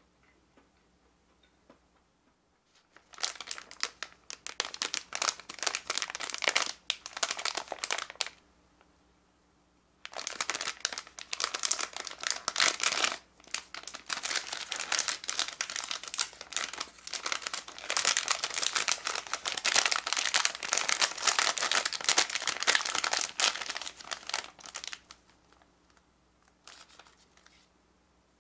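Plastic snack wrapper crinkling as hands handle it and pull it open. This comes in two long spells with a short pause between, then a brief rustle near the end.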